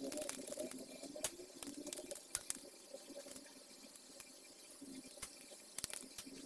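Utility knife blade scraping and trimming the edges of a rectangular cutout in a thin panel: a scattered run of small sharp clicks and scratches.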